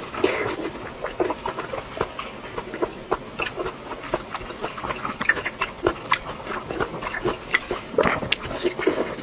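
Close-miked eating: chewing and wet mouth sounds, a dense run of short clicks and smacks.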